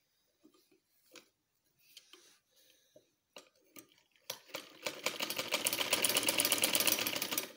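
Vintage sewing machine stitching a seam: a few soft clicks as the fabric is set under the presser foot, then, about four seconds in, a rapid, even clatter of the needle mechanism that stops abruptly near the end.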